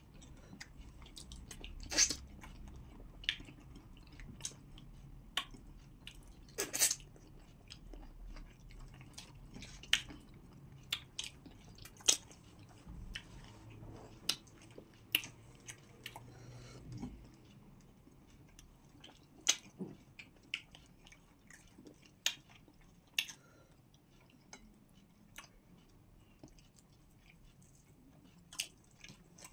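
Close eating sounds of people chewing pounded yam with okra soup: irregular wet mouth smacks and sharp clicks, a few louder ones standing out over a soft low background.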